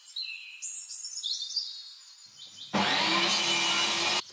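Birds chirping faintly, then about three seconds in a table saw cutting wood comes in loud with a steady hum and cuts off suddenly near the end.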